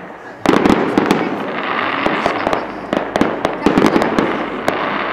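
Fireworks display: aerial shells bursting, with a sudden loud bang about half a second in, then many sharp reports over a dense crackle of glittering stars.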